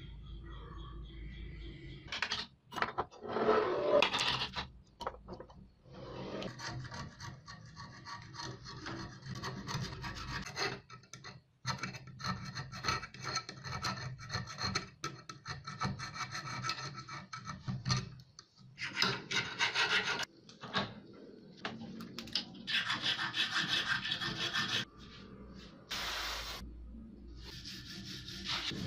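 Hand file rasping along a rusty steel pruner handle, taking off rust in repeated runs of strokes broken by short pauses. Near the end a hand wire brush scrubs the rusty handle.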